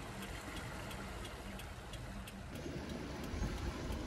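Low rumble of a car with a steady ticking, about three ticks a second; the rumble grows louder in the last second or so.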